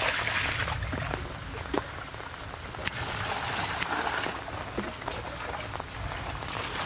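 Water splashing as it is poured from a plastic dipper over beef ribs in a large metal basin, then more water scooped from a big glazed jar, with a few light knocks.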